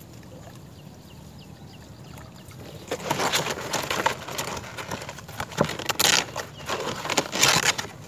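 A few faint, short falling chirps in the first couple of seconds, then loud irregular rustling and crackling from about three seconds in.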